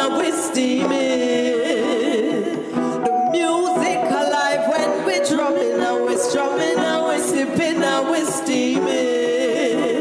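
Live acoustic reggae performance: a woman singing lead with vibrato and backing singers, over strummed acoustic guitar and hand-drum percussion.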